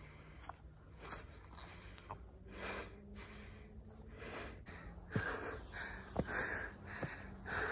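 A person breathing hard, in puffs about once a second, while climbing a steep forest trail on foot, with a few footsteps on the dirt and log steps. The heavy breathing is from the uphill climb.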